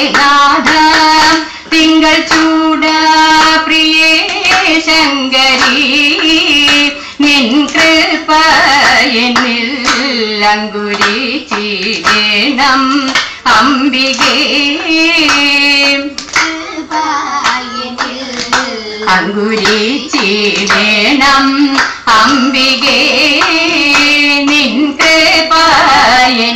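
Kaikottikali (Thiruvathirakali) dancers clapping their hands in rhythm, with women's voices singing the accompanying song.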